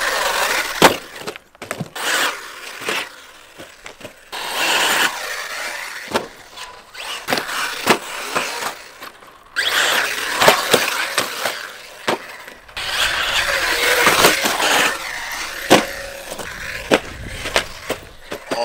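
Radio-controlled off-road buggy running on a dirt track: its tyres scrabble over dirt and gravel in swelling runs, broken by repeated sharp knocks from hard landings and crashes.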